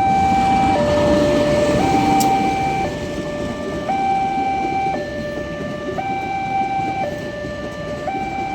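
Railway level-crossing alarm sounding an electronic two-tone hi-lo signal, switching between a higher and a lower tone about once a second, over a steady low rumble.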